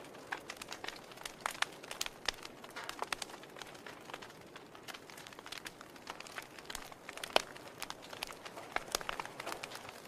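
Wood fire crackling: irregular sharp pops and snaps from burning logs over a soft hiss, with one louder pop about seven seconds in.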